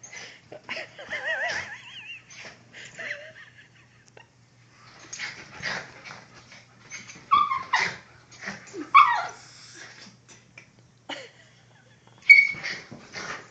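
A Miniature Pinscher and a mixed-breed dog play fighting, whining and yipping. A wavering whine comes about a second in, then short sharp yips and barks come in the second half.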